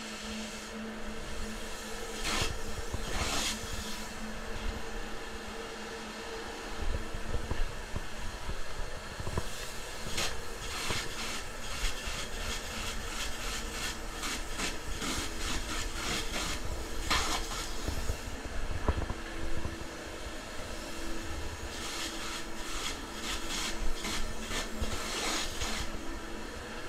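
Polyurethane spray foam gun spraying in several hissing bursts, each lasting about a second, over a steady machine hum and low rumbling knocks.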